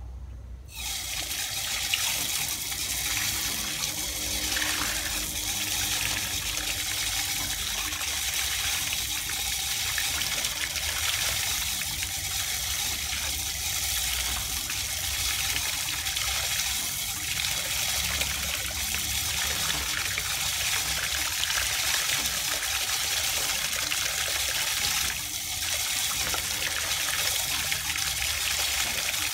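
Water from an outdoor tap pours in a steady stream into a plastic basin as cut eel pieces are rinsed by hand. The splashing starts abruptly about a second in as the tap is opened.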